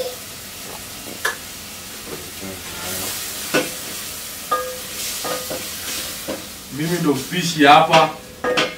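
Wooden spoon stirring food in an aluminium cooking pot, knocking against the pot now and then, over a sizzling hiss from the pot. A voice sounds briefly near the end.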